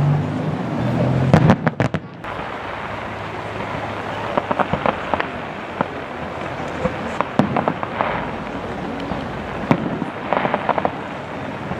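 Aerial firework shells bursting in the sky: a scattering of sharp bangs and crackles, coming in small clusters a few seconds apart.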